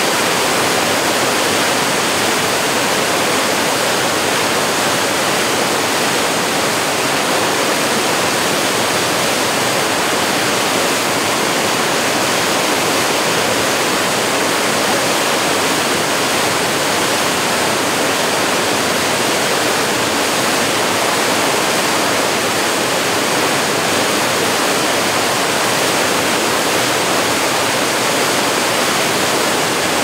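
Steady, loud rush of white water pouring through a rocky waterfall.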